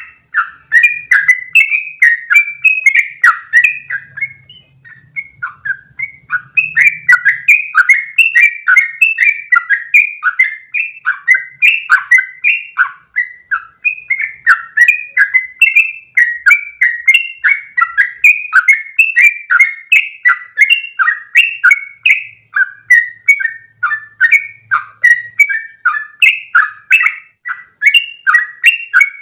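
Yellow-vented bulbul singing a long, rapid run of bubbly chirping notes, with a brief pause about four seconds in.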